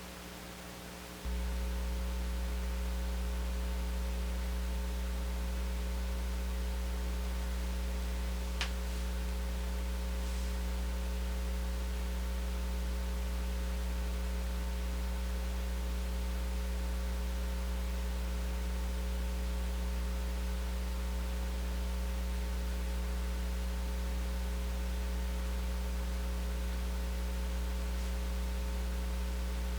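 Steady low electrical hum with a few faint steady tones above it, stepping up in level about a second in and then holding; a single short click about nine seconds in.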